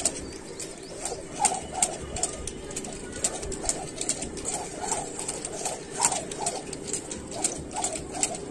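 A skipping rope slapping a concrete floor about twice a second, each pass a sharp click, as someone jumps rope barefoot.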